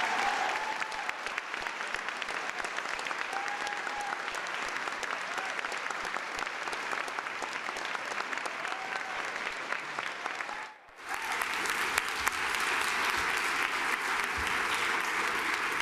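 Large audience applauding steadily, with a few voices calling out. The applause drops away for a moment about eleven seconds in, then comes back.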